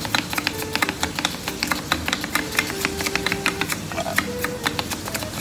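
Rapid knife chopping: a chef's knife striking a plastic cutting board many times a second in quick, uneven clicks as an onion and a carrot are sliced. A simple background-music melody of held notes plays underneath.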